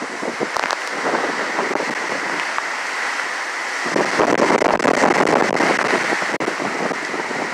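Strong gusty wind during Hurricane Ian, rushing and buffeting the microphone, with a stronger gust setting in about halfway through.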